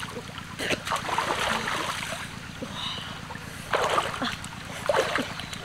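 Water splashing irregularly as a person wades and moves their arms through a shallow flowing river, over the steady rush of the stream.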